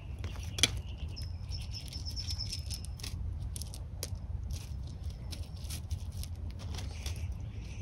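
Rustling and light crackling of succulent plants and gravel as plants are pulled up by hand, in scattered short clicks over a low steady rumble. A thin high trill sounds for about two seconds near the start.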